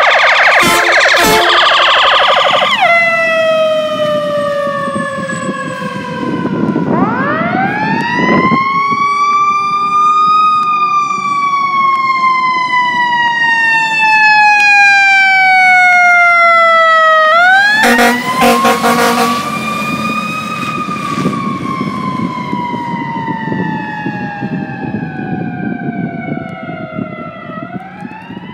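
Sirens of a fire engine and an ambulance leaving on an emergency run. A rapid warble opens it, then a slow wail rises and falls in long sweeps. A second quick burst of fast warble comes about two-thirds of the way in, over a low rumble.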